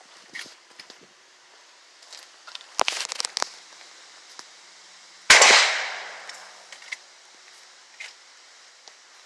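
A single loud gunshot about five seconds in, dying away over about a second. A short run of sharp clicks comes a couple of seconds before it.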